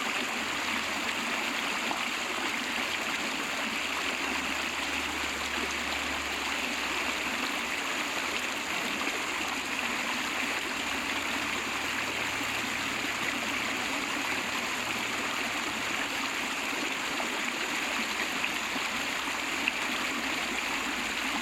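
River water running in a steady, even rush.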